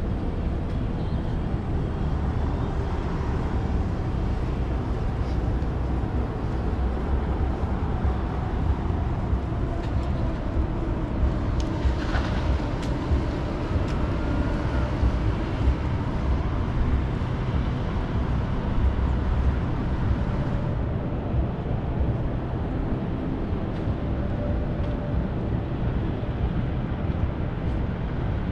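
Downtown street ambience: a steady rumble of passing traffic, with a faint rising whine about halfway through.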